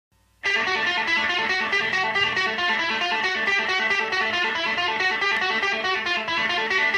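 Music: a guitar playing a quick run of picked notes, starting about half a second in.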